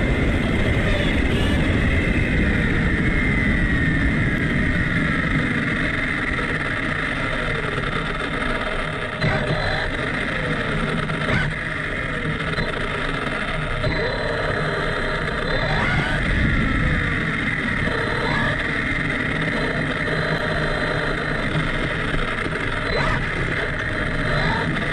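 Arrma Kraton RC car's brushless electric motor and drivetrain whining, heard from a camera mounted on the car over a steady rush of tyre and road noise. The whine falls in pitch early on as the car slows, then rises and falls several more times as the throttle is worked.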